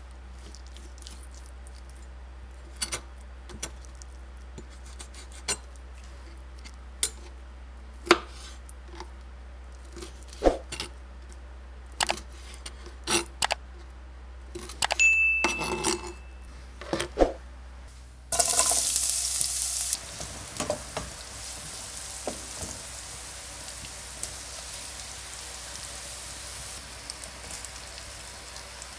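A chef's knife cuts lamb heart and kidneys on a plastic cutting board, giving sharp, irregular knocks. About two-thirds of the way through, a loud sizzle starts suddenly and eases after a couple of seconds into steady frying of the diced offal and sliced onion in the pan. A few clicks of a wooden spatula stirring come through the sizzle.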